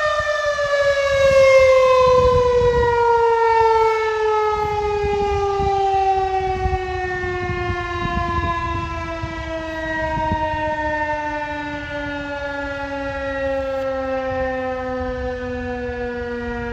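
Federal Signal 2001-130 outdoor warning siren winding down after a tornado warning alert: its single tone slides steadily lower in pitch as the rotor slows, settling into a low drone near the end.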